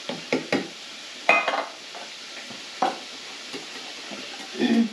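A wire whisk stirs cream of mushroom soup and beef broth in a glass bowl, making irregular clinks and scrapes against the glass. The loudest clink, about a second in, rings briefly.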